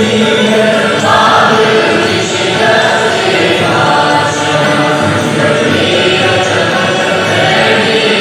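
A group of voices singing together, continuous and loud.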